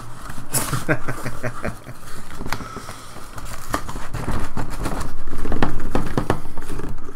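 Cardboard shipping case being handled: flaps rubbing and tapping, then a longer scraping rush about two-thirds of the way through as the inverted case slides up off the stacked shrink-wrapped boxes inside.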